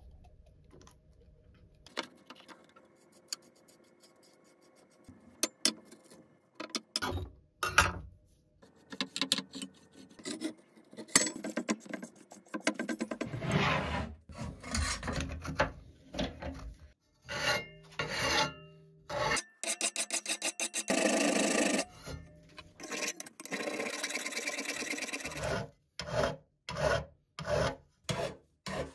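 Tools being handled and set down in short knocks and scrapes, then a flat hand file rasping along the edge of a steel sapper shovel blade clamped in a vise, in even strokes about one and a half a second near the end.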